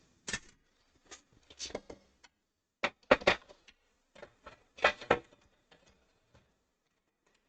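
Hard drives being handled and fitted into a PC case's metal drive bay: scattered clicks and knocks in a few clusters, the loudest about three and five seconds in.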